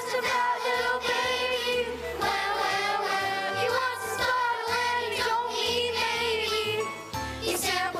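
Children's choir singing a song with instrumental accompaniment.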